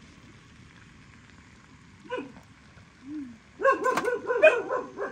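Hot water running in a thin stream from a samovar tap into a glass teapot, then a dog yelping in a quick run of high calls about three and a half seconds in, the loudest sound.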